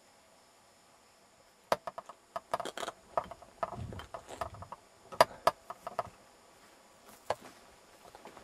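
Handling and movement noise close to the microphone: a cluster of short, sharp clicks and knocks from about two seconds in, with a brief low rumble in the middle, then a few more clicks near the end.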